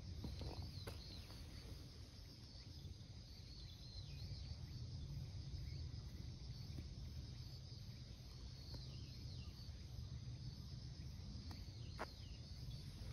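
Quiet outdoor ambience: a low steady rumble with faint, short high-pitched chirps scattered through it, and a few faint ticks.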